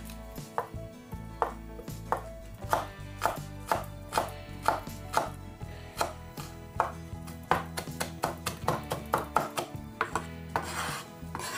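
Large kitchen knife chopping garlic cloves on a wooden cutting board: sharp, irregular strikes about two to three a second, coming faster near the end as the garlic is minced.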